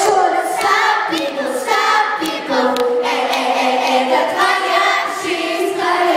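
Several young girls' voices singing together live through microphones, holding long notes in harmony with little or no backing track under them. Scattered shouts from the audience.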